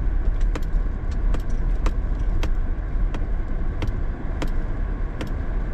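Inside a pickup truck's cabin as it rolls slowly over snow: a steady low rumble of engine and tyres, with scattered sharp clicks about twice a second.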